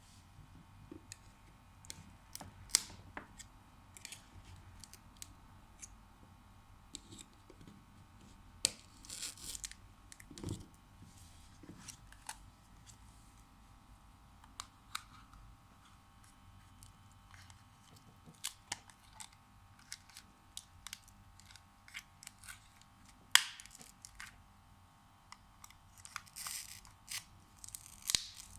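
Small tools and phone parts being handled during an iPhone 6s Plus battery replacement: scattered sharp clicks and taps, with a few short scraping, rustling noises.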